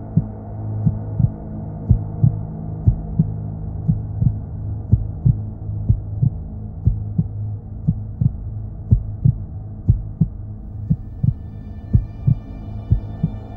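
Heartbeat sound effect: paired low thumps, lub-dub, about once a second, over a steady low droning hum. A high held musical tone comes in near the end.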